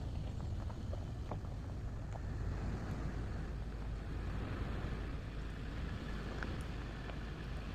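Steady low rumble of a car driving, engine and road noise together, with a few faint clicks.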